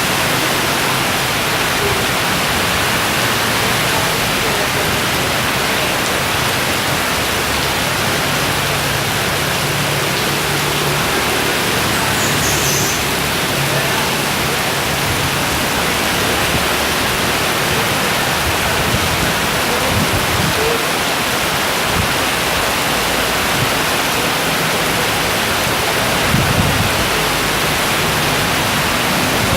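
Heavy rain pouring down steadily, a loud, even hiss of a tropical downpour.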